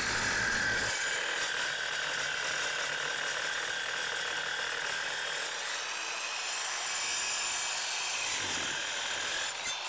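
Evolution EVOSAW180HD metal-cutting circular saw cutting through thick steel section, a steady high-pitched cutting noise under heavy load. It stops near the end as the cut finishes.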